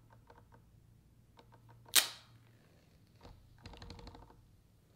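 Fingers working the seal on an iPhone 12 Pro box: light clicks and scratches on the cardboard, one sharp snap about two seconds in, and a short stretch of scratching and tearing near four seconds in as the seal is peeled.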